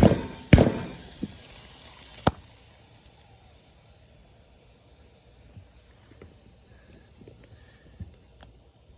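A ratchet strap around a tire clicks sharply three times in the first two and a half seconds, then a steady hiss of compressed air at the tire runs on while the bead is not yet seated on the rim.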